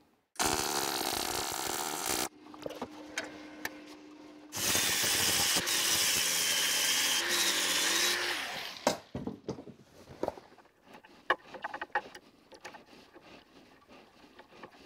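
Angle grinder grinding down the weld on a small steel adapter plate: about four seconds of loud, harsh grinding from about a third of the way in. It is preceded by a shorter two-second burst of harsh noise near the start. After the grinding stops, scattered clicks and knocks come from metal parts being handled as a toggle clamp is fitted.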